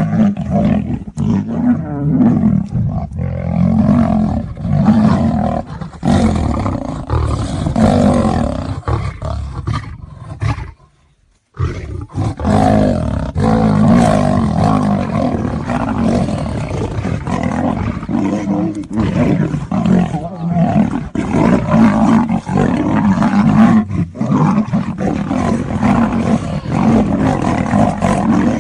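A lion and a tiger roaring and growling without pause as they fight, the sound broken once by a short silent gap about eleven seconds in.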